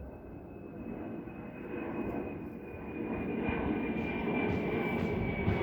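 An aeroplane passing overhead, its rumble growing steadily louder, with a thin high whine that slowly drops in pitch.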